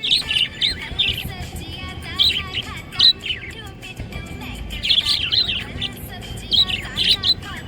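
Budgerigar chirping in quick high chirps and warbles, coming in about five bursts with short pauses between them.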